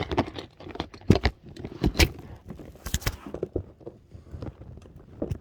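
Plastic fidget toys being handled and sorted, making irregular clicks and knocks, a few louder ones about one, two and three seconds in.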